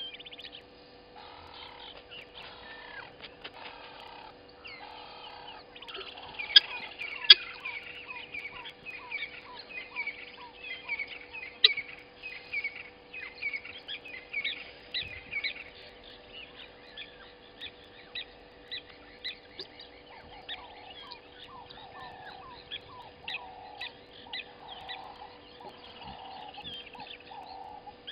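Wild birds calling: a run of short chirps repeated about twice a second through the middle, with lower falling notes and soft low calls at the start and again near the end. Scattered sharp clicks stand out, the loudest a little before the middle, over a faint steady hum.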